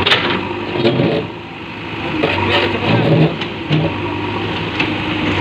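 JCB 3DX Eco backhoe loader's diesel engine running hard under load as the stuck machine works its bucket and stabiliser leg to free itself from deep compost, the engine note rising and falling. Several short knocks and clunks sound over it.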